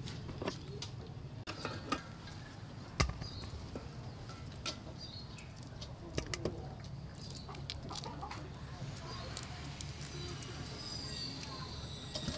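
Scattered sharp clicks and taps of kitchen knives working on raw shrimp over a steel bowl, the loudest about three seconds in. Birds chirp in the background, more toward the end, over a faint steady low hum.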